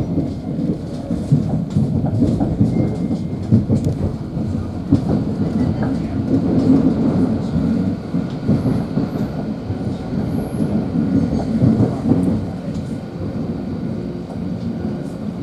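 Thameslink Class 700 Siemens Desiro City electric multiple unit heard from inside the carriage while running along the line: a steady rumble of wheels on track with a scatter of small clicks from the rails, easing a little near the end.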